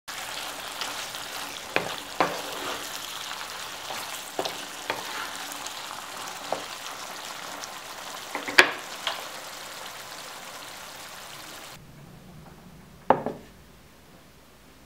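Orecchiette and turnip greens sizzling in a frying pan as a wooden spoon stirs them, with scattered sharp knocks of the spoon against the pan. The sizzling stops a few seconds before the end, followed by a single louder knock.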